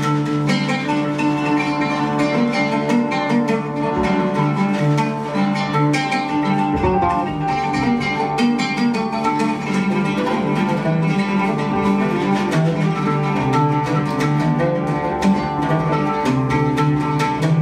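Live band music: a guitar plucked in quick runs over low electric bass notes and percussive hits.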